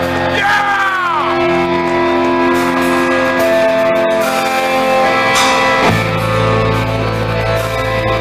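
Progressive metal band playing live, heard from the crowd in a large hall: long held guitar notes ring over the band, and about six seconds in a deep low bass note comes in underneath.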